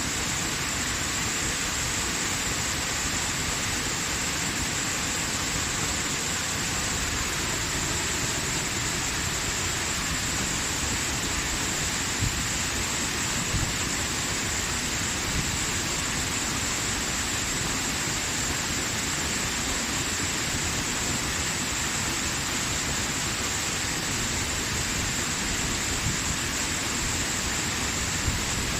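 Waterfall: steady, even rush of falling water, with a few brief low bumps.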